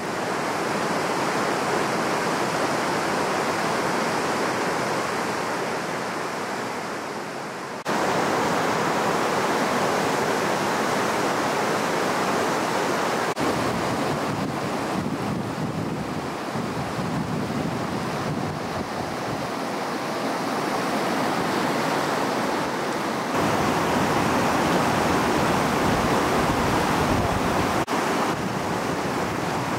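Fast mountain river rushing over rocks in whitewater rapids: a steady, even rush of water noise. Its level jumps abruptly a few times.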